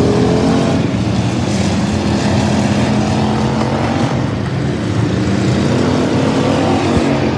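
Several dirt-track stock cars' engines running together, their pitches rising and falling and overlapping as the cars race.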